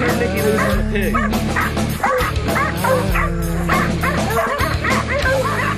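A pack of hog dogs barking and yipping as they bay a wild hog, holding it in place. Background music with steady low held notes plays under the barking.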